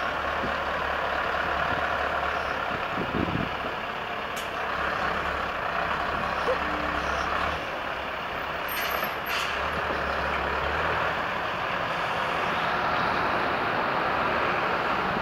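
Scania T-cab lorry's diesel engine running steadily as the truck and trailer move slowly, with a couple of short air-brake hisses.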